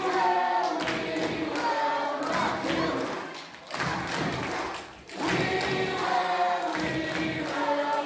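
A large group of young voices singing a song together in unison, phrase by phrase, with short breaks between phrases.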